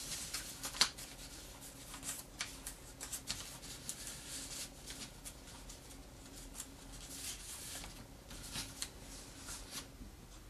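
Origami paper crinkling and rustling as hands fold a flap over and press the creases flat: an uneven string of short, crisp crackles.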